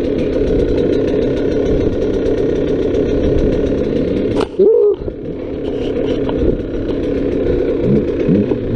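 Dirt bike engine running under steady throttle on a trail, with a sudden sharp rev about four and a half seconds in. Near the end the engine drops toward idle with quick throttle blips, the pitch rising and falling.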